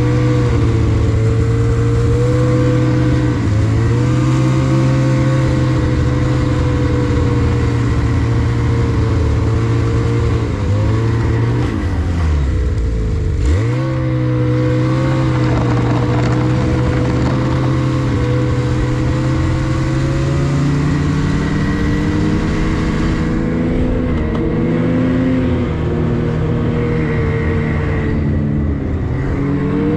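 Snowmobile engine running steadily at cruising speed. About twelve seconds in its pitch drops sharply as the machine slows almost to a stop, then it picks back up, with a smaller dip near the end.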